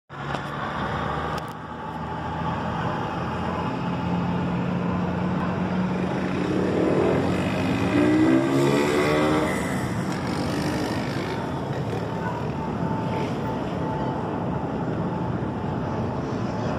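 Steady outdoor rumble of city traffic and a jet airliner overhead. A vehicle engine rises and then falls in pitch as it passes, about seven to nine seconds in, and is the loudest part.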